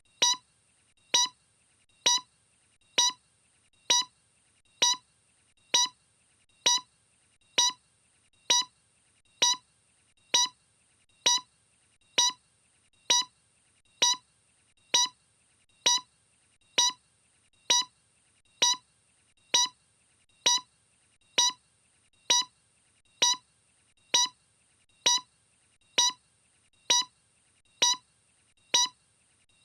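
A short electronic beep, pitched around 1 kHz, repeating evenly about once a second without change.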